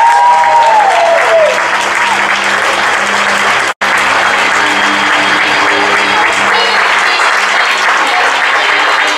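Audience applauding, with a few cheers in the first second or so. The sound drops out for an instant about four seconds in.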